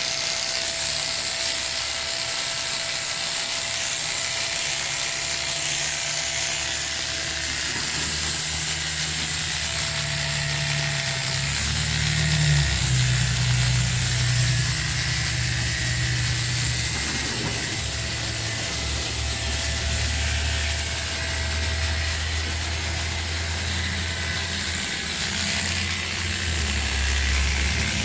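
Electric hair clippers buzzing steadily as they cut hair, over a constant hiss; the low hum grows stronger about twelve seconds in.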